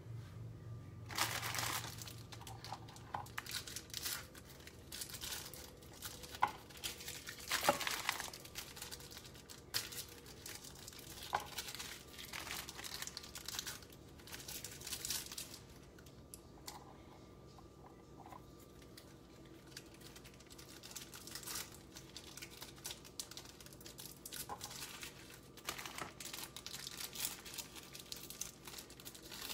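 Packaging crinkling and rustling as it is handled, in irregular bursts.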